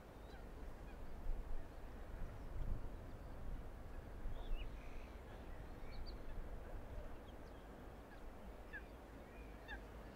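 Open-air reservoir ambience: a steady low rumble with scattered short bird chirps and calls over it.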